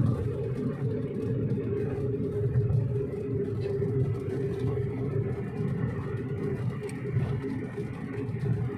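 An engine running steadily: a low rumble with a constant hum on top.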